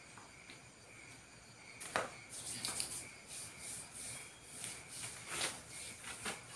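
Hands rubbing and kneading a foot coated in hot cream, making soft, irregular swishing strokes of skin on skin that start about two seconds in, after a single sharp click.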